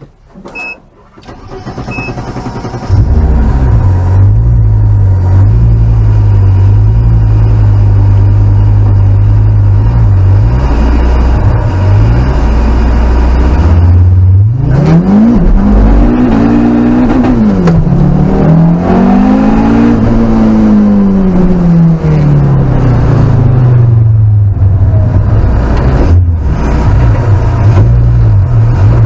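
Audi Sport Quattro S1's five-cylinder engine, heard from inside the cabin. It is cranked and catches about three seconds in, then idles steadily. Midway it is revved up in rising and falling sweeps, held highest for a few seconds, then settles back to idle.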